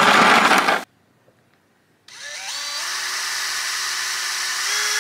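A brief loud rustle of a plastic bag at the start, then about two seconds in a cordless drill starts, spins up with a rising whine and runs on steadily, unloaded, with a slight rise in pitch near the end.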